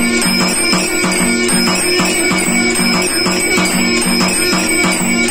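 Electric temple aarti machine running: motor-driven beaters strike a 16-inch nagara drum in rapid, evenly spaced strokes while a brass bell rings, with a recorded shankh (conch) sound playing along.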